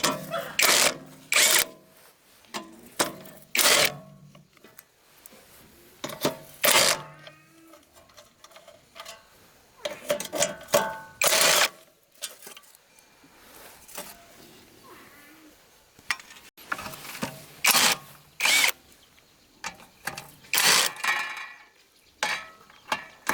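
Hand tools working on metal engine parts: irregular short scraping and knocking strokes, about a dozen, with pauses between.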